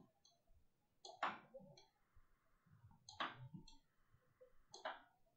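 Faint computer mouse clicks, placing cut points with Blender's knife tool: three clearer clicks about a second, three seconds and five seconds in, with a few lighter ticks between them.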